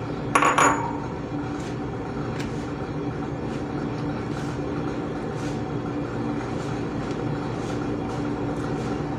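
A sharp metallic clink with a brief ring about half a second in, over a steady low hum. Faint soft rustling of hands working eggs into flour in a plastic bowl.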